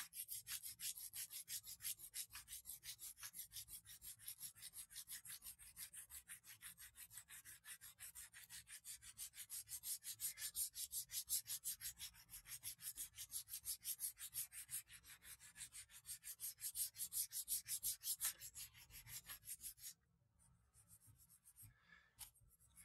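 Sandpaper wrapped around a rolled washcloth rubbed back and forth by hand over a guitar headstock, sanding through its black finish: an even rhythm of hissing strokes, about three a second. The sanding stops a couple of seconds before the end, leaving a few faint handling sounds.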